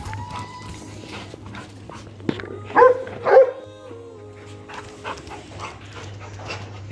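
Labrador retriever barking twice in quick succession, about three seconds in, over soft background music.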